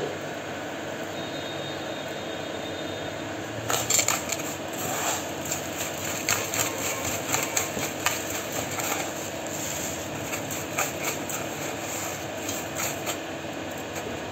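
Crisp flatbreads being crushed by hand in a metal bowl: a dense run of dry crackles and crunches that starts about four seconds in and dies away near the end, over a steady fan hum.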